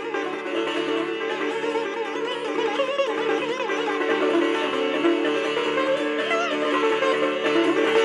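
Indian classical instrumental music led by a sitar, its melody notes bending up and down over a steady drone.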